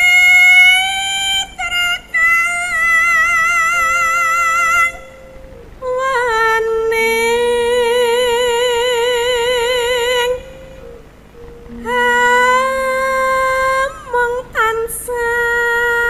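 A Javanese sinden singing long held notes with a wide, wavering vibrato over gamelan accompaniment, in several long phrases broken by short pauses.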